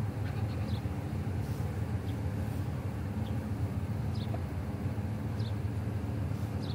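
A steady low hum of a motor running, with faint short high chirps every second or so over it.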